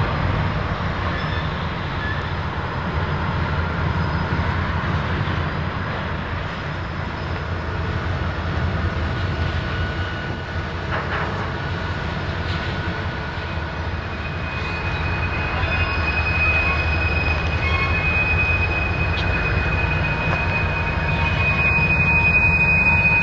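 Diesel freight locomotives rolling slowly past with a steady low engine rumble. A thin, steady high-pitched wheel squeal sets in about halfway through and is loudest near the end.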